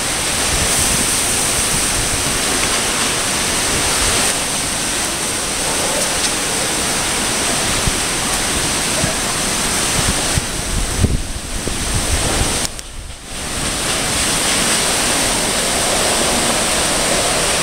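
Typhoon wind and rain, a loud steady rushing noise with wind buffeting the microphone in low thumps. It lets up briefly about three-quarters of the way through, then comes back.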